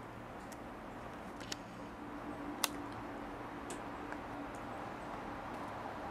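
Steady low background hum with a few short, sharp clicks; the loudest click comes a little over two and a half seconds in.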